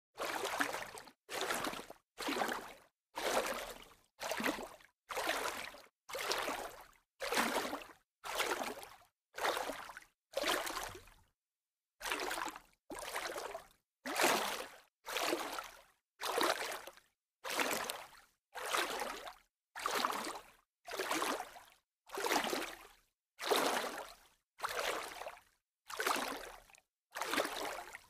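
Light splashes of water, one after another about once a second, each a short burst that fades out, with silence between them.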